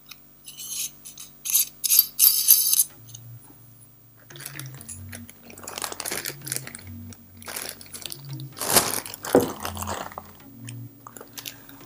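Metal adapter rings clicking and clinking against each other while being fitted together by hand during the first three seconds, then a plastic bag rustling as the part is handled. Quiet background music with low, slowly changing notes runs underneath.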